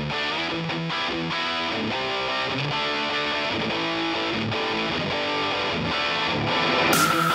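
Background music led by strummed guitar. Near the end a louder hiss with a steady high tone comes in over it.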